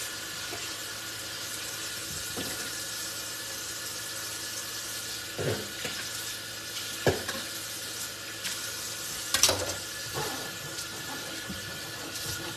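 Kitchen tap running into the sink while something is washed by hand, a steady rush of water. A few sharp knocks come through it, the loudest a little past halfway.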